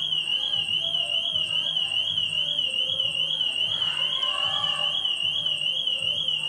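Car alarm sounding: a loud, high warbling tone that rises and falls several times a second. A faint, steady low music beat runs underneath.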